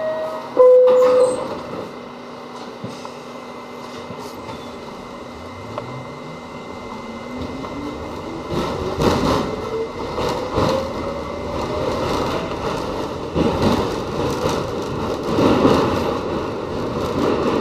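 The lower note of a falling two-tone door chime sounds about a second in, on a Westinghouse R68 subway car. Then its traction motors whine steadily higher in pitch as the train accelerates out of the station, while wheel and track rumble and clatter grow louder.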